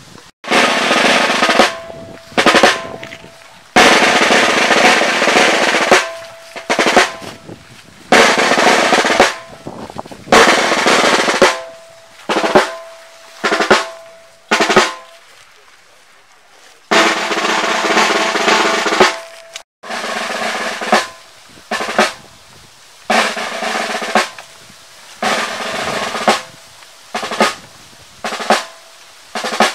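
Snare drum playing a series of loud rolls, each lasting from half a second to a few seconds, with short gaps between.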